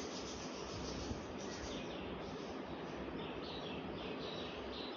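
Faint steady hiss with faint high chirps repeating through it.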